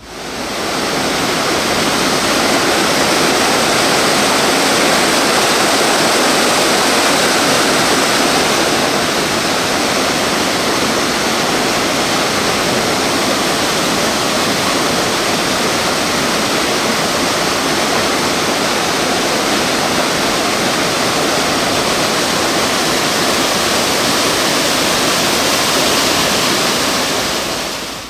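Rushing water, loud and steady, fading in at the start and out just before the end.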